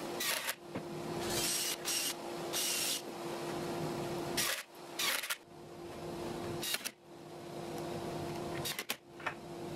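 Makita cordless drills driving screws into MDF panels in several short bursts, over a steady background hum.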